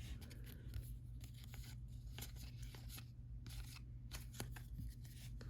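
Faint handling of baseball cards and their packaging: many small scattered ticks, slides and rustles of card stock over a steady low hum.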